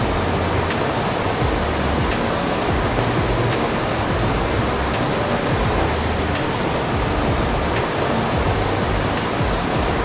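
Waterfall pouring into a rocky plunge pool: a steady, loud rush of falling water, with faint background music and a low bass line underneath.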